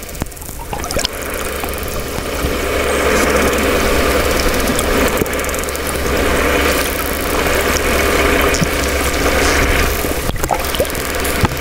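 Underwater sound around a group of Atlantic spotted dolphins: a steady buzzing that grows louder after the first couple of seconds, with scattered sharp clicks over a constant low hum and water noise.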